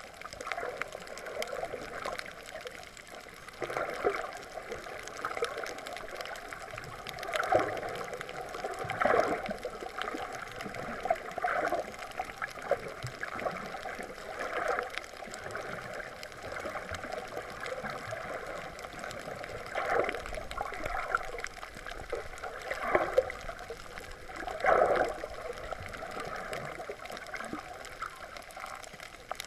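Water sloshing and gurgling around an underwater camera, a steady wash that swells irregularly every few seconds.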